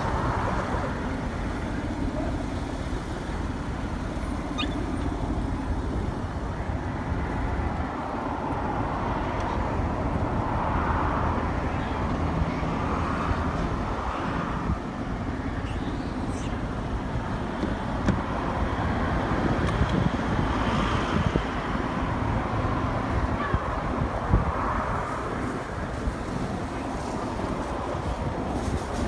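Steady outdoor background rumble with soft swells and a few faint clicks, like road traffic heard in the open.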